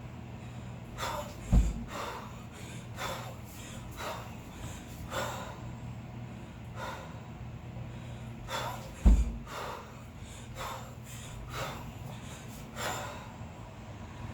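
Sharp, rhythmic exhales of a kettlebell lifter mid-set, about one breath a second. Two heavy dull thuds, about seven and a half seconds apart, are the loudest sounds.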